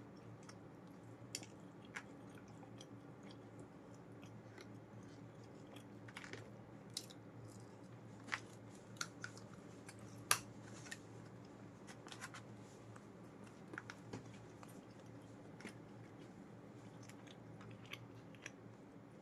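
A person chewing and biting food close to the microphone, with scattered crisp clicks and crunches over a faint steady hum.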